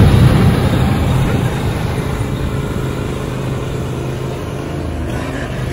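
John Deere Z-Trak zero-turn riding mower's engine running steadily under way, a low drone that gets a little quieter over the seconds.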